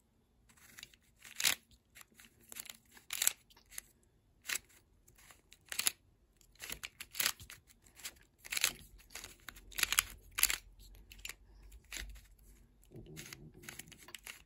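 Plastic clicks and clacks of a Volt V2 Square-1 puzzle being scrambled by hand, its layers turning and slicing in quick, irregular strokes.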